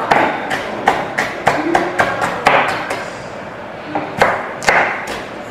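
Knife chopping vegetables on a cutting board: a run of about ten sharp strokes, some three or four a second, a pause of about a second, then four more strokes.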